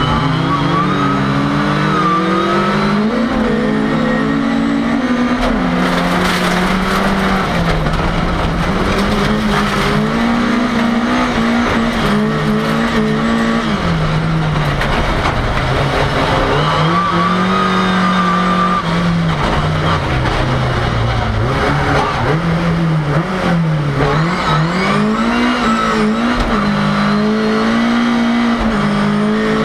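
Racing Ford Cortina's engine heard from inside the cabin, revving up and dropping back again and again as it is driven hard through gear changes and corners.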